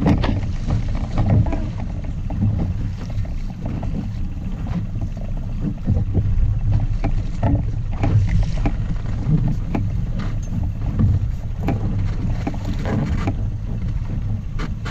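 Wind buffeting the microphone and water slapping against a small inflatable boat, with scattered knocks and bumps throughout.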